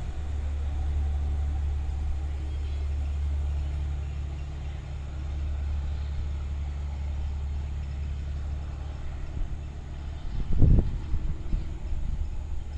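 Diesel train engine droning steadily and low, with a brief louder rumble about ten seconds in.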